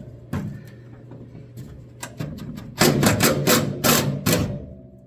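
A few single metallic clicks, then a quick run of sharp metal knocks and clicks, about five a second for under two seconds, from tools working the factory hood-hinge bolts on a 1968 Mustang. A steady hum runs underneath and stops near the end.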